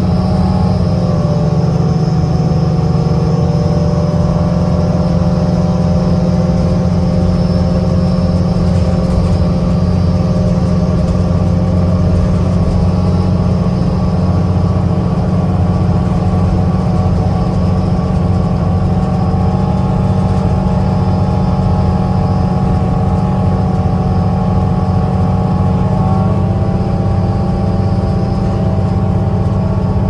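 Inside the passenger cabin of a 2010 New Flyer DE40LFA diesel-electric hybrid bus (Cummins ISL diesel, Allison EP40 hybrid drive) at road speed: a steady, loud low drone of engine and road noise, with several steady higher whines over it that shift slightly in pitch near the end.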